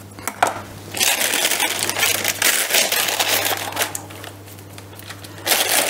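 Baking paper rustling and crinkling as it is pulled from under a rösti roll and crumpled aside on a wooden board, in irregular surges that ease off about four seconds in and pick up again near the end.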